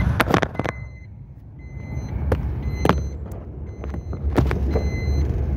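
Hyundai Verna running in third gear, heard from inside the cabin as a low engine and road rumble. Sharp knocks and rubbing from the phone being handled come over it, several close together at the start and a few single ones later, and a short high warning beep sounds about once a second.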